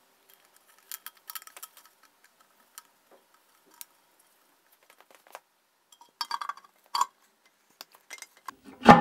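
Light clicks and rustles of a paper gasket being fitted over the steel studs of a Land Rover axle case's differential face, then a few metal clinks and one heavier clunk near the end as the cast-iron differential housing goes onto the studs.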